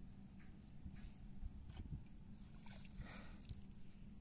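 Water buffalo grazing as it lies in a mud wallow: faint tearing and chewing of grass, with a louder rustle about three seconds in.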